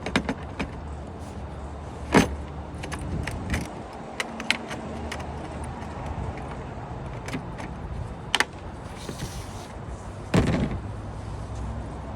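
Scattered clicks and knocks, with two heavier thumps about two seconds in and near the end, over a steady low hum.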